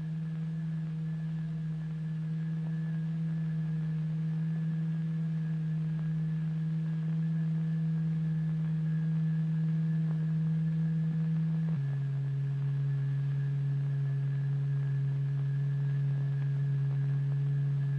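Steady low electronic drive tone, a plain hum-like note, from the oscillator vibrating a fluid layer into a regular lattice pattern. About twelve seconds in, the pitch drops a step and then holds steady.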